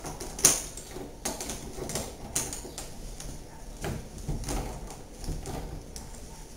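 Scattered light clicks and knocks of hands handling the fountain's plastic float and wire screen during assembly, at irregular intervals.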